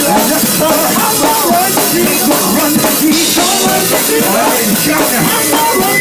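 Live gospel quartet singing: several men's voices into microphones over a drum kit with cymbals and bass drum, loud and without a break.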